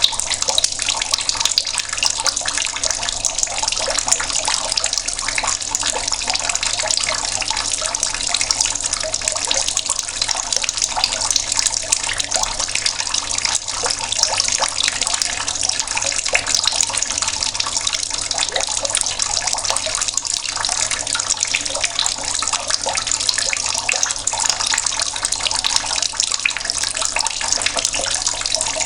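Water running steadily from an outdoor tap, splashing and trickling as it falls.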